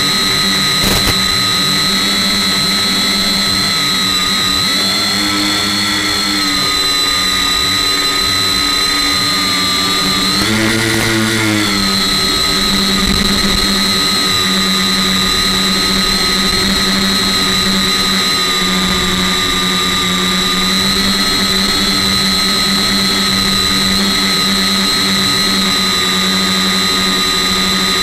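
Electric tricopter's motors and propellers whining steadily, heard from the craft's onboard camera. The pitch rises briefly a little over ten seconds in as the throttle is raised, then settles back.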